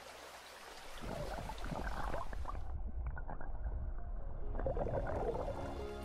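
Water moving and splashing, starting from near quiet about a second in. For about two seconds in the middle it turns muffled, as when heard underwater.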